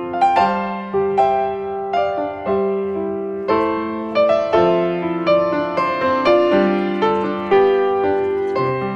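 Background piano music: slow, gentle notes and chords struck about once a second, each ringing and fading before the next.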